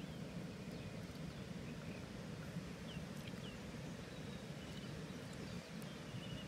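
Outdoor ambience: a steady low rumble, with several faint, short bird chirps.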